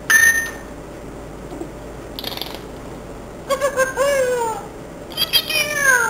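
Pet parrot calling: a short call at the start, a brief scratchy noise about two seconds in, then two drawn-out calls that slide down in pitch.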